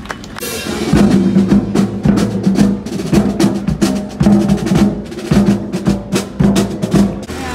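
Marching band playing: drums beat a steady rhythm of sharp strokes under held brass and saxophone notes. The band grows loud about a second in.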